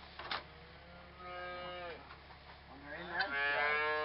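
Cattle mooing twice: a drawn-out call in the first half, then a louder one about three seconds in that rises at its start and then holds.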